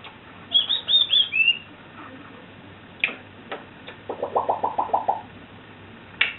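African grey parrot vocalising: a quick run of four high whistles, the last one falling, then a few sharp clicks, then a fast stuttering string of about eight lower notes.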